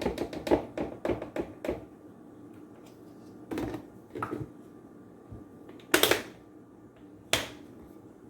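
Kitchen handling sounds while measuring flour: a quick run of clicks and knocks from a measuring cup and containers, then a few short scraping, rustling bursts, the loudest about six seconds in.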